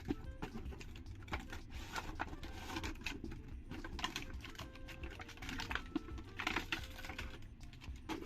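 Plastic toys being handled: quick, irregular light clicks and taps of small plastic parts, with one sharp click right at the start.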